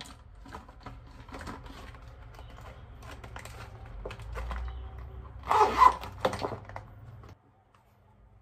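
A clear plastic zip pouch of lipsticks being handled, giving small clicks and rustles. A louder rustle comes about five and a half seconds in. The low room hum behind it cuts off abruptly near the end.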